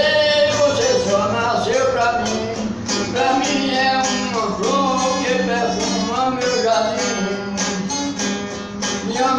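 A Brazilian viola (viola caipira) being played solo, a melody picked over regular strummed chords.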